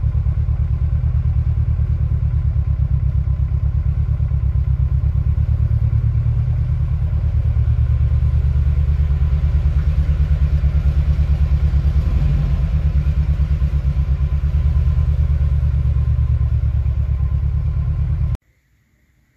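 A vehicle engine running steadily with a deep, even pulse, then cutting off abruptly near the end.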